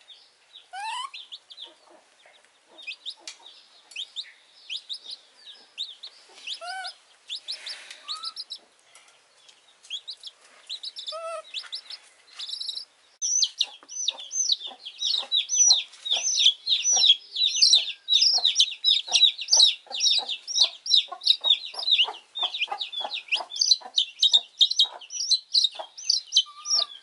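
A wet baby chicken peeping: scattered faint peeps at first, then from about halfway through a loud, fast run of high-pitched peeps, several a second.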